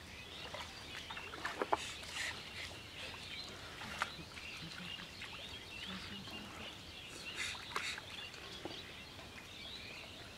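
Outdoor rural ambience: small birds chirping over a steady high hiss, with a few sharp clicks, the loudest about a second and a half in and at four seconds.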